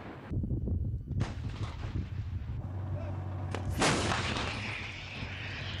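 Tank main gun firing: a loud blast about four seconds in, trailing off in a long rolling echo, with sharper reports about a second in. A steady low rumble runs underneath.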